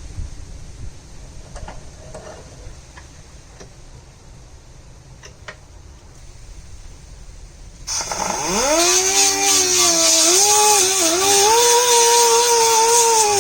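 A pneumatic die grinder fitted with a wire brush, used to strip rust from steel plates, spins up about eight seconds in with a rising whine over a hiss of air, then runs on with its pitch wavering. Before that there are only light knocks and clicks of handling.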